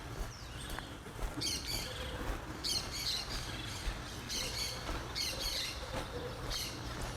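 Birds giving harsh, squawking calls, repeated about every second and a half over a steady low background hum.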